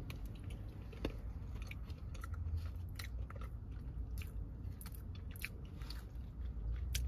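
A person chewing a mouthful of soft powdered-sugar cake donut close to the microphone: scattered small wet clicks and smacks of the mouth over a steady low hum.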